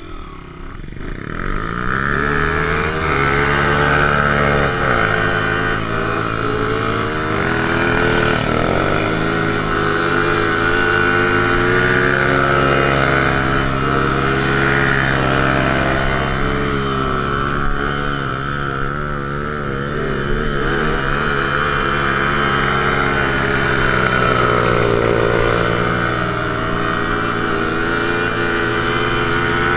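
Small Honda four-stroke single-cylinder dirt bike engine revving up over the first couple of seconds, then held at high revs with a few dips and rises as the bike spins donuts on wet pavement, rear tyre spinning.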